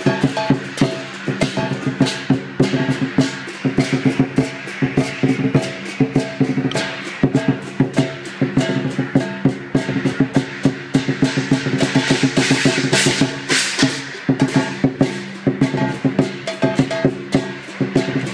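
Chinese lion dance percussion: a large drum beating a fast, steady rhythm under ringing gong and crashing cymbals, the crashes loudest about two-thirds of the way through.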